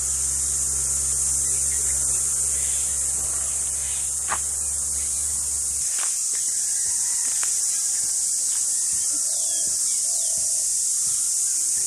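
Insects keeping up a steady, shrill high-pitched drone, the 'kirr' sound of a hot morning, with a few faint bird calls in the second half.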